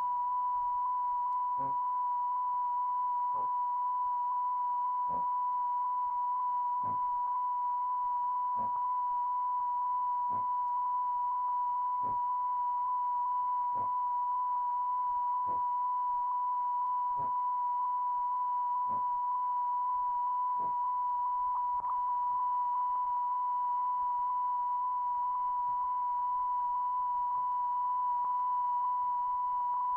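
Steady, unbroken test tone held at one pitch, laid on the soundtrack of silent film. Faint regular ticks sound a little under every two seconds and fade out after about twenty seconds.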